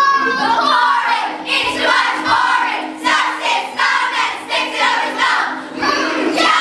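Children's voices singing together over a musical accompaniment with held low notes.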